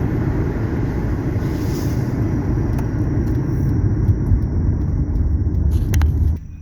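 Car driving along a road, heard from inside the car: a steady low road and engine rumble that drops away suddenly near the end.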